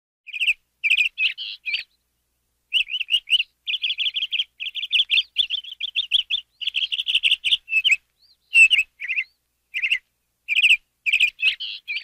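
A canary singing: quick trills and rapidly repeated chirping notes in phrases, with a short break about two seconds in.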